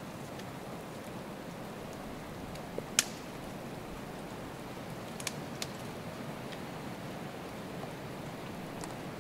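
Bull moose browsing on birch twigs and bark: a few sharp snaps and cracks of twigs, the loudest about three seconds in, over a steady rushing background noise.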